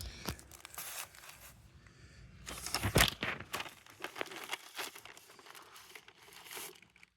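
Sandwich wrappers rustling and crinkling as the food is unwrapped, with a sharper crackle about three seconds in.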